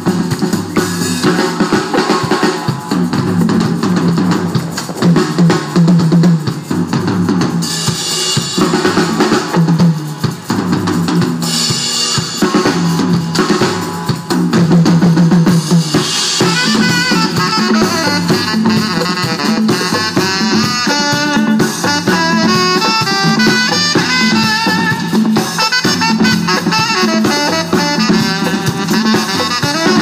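Live band playing amplified through a stage PA: drum kit with snare, bass drum and rimshots, electric bass and guitar. About halfway through, a saxophone comes in with a lead line of quick, bending notes over the band.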